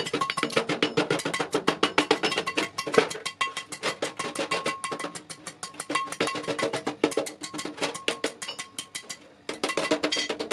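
Background music with a fast, steady percussion beat of wood-block-like knocks over sustained tones.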